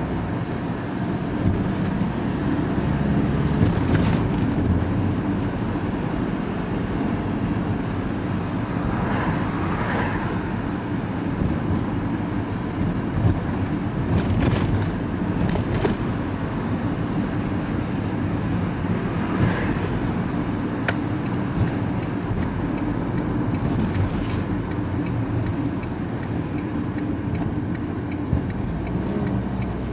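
Engine and road noise heard from inside a moving vehicle's cab, a steady low hum, with a few short knocks and rattles scattered through.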